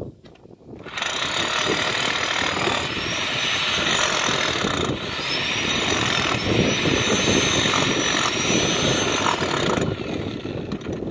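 A power tool motor running steadily with a faint wavering whine, starting abruptly about a second in and cutting off near the end.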